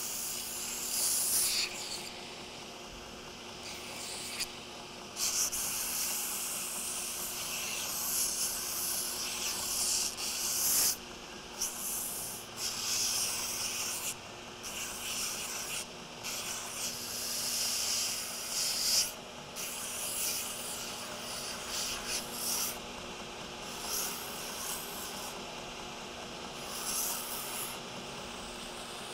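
Belt grinder running with a coarse 80-grit belt over a slack section, as a knife handle scale is pressed against it in repeated passes: each pass a hissing grind lasting a second or two, over the steady hum of the grinder's motor.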